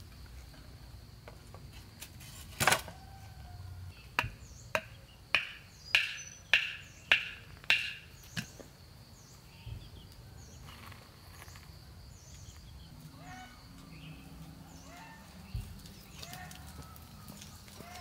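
A metal hoe chopping into dry tilled soil: one hard strike, then about eight evenly spaced strokes, each with a short metallic ring, at roughly two every second and a half. Insects keep up a faint steady high whine.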